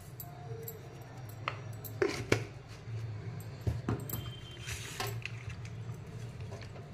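Raw fish pieces being handled in a stainless steel bowl, with a few sharp clinks and knocks against the steel, over a steady low hum.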